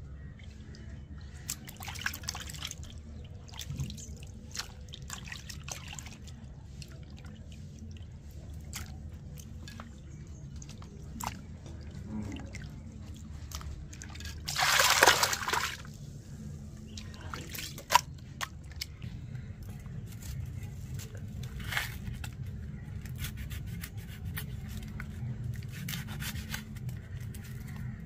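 Liquid sounds: scattered drips and small splashes over a steady low rumble, with a louder rush lasting about a second and a half midway and a single sharp click soon after.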